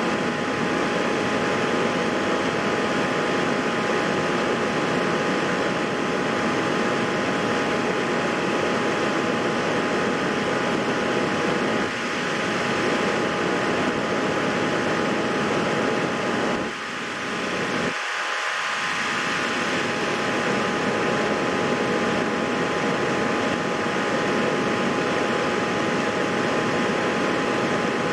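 Steady hiss with a faint high whine, dipping briefly about seventeen seconds in.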